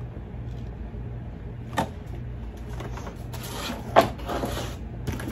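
Clear plastic clamshell food packages being handled and set down: a knock about two seconds in, then rustling with a sharper knock about four seconds in. A steady low hum runs underneath.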